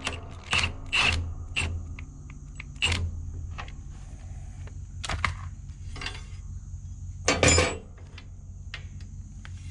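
Milwaukee M18 cordless impact wrench run in reverse in short bursts to back a bolt out of a mower's deck-height bracket, then metal clinks and rattles as the loosened bolt and fittings are handled, with one louder clatter late on.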